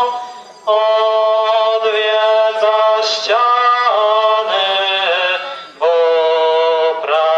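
A small group of voices singing a slow religious hymn in unison into a microphone, holding long notes, with two short breaks for breath.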